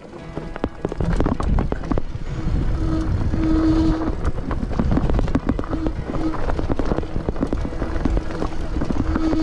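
Mountain bike descending a rough, rocky dirt trail: continuous rumble and clatter of tyres and frame over stones and loose ground, with wind on the microphone. It gets much louder about a second in as the bike picks up speed.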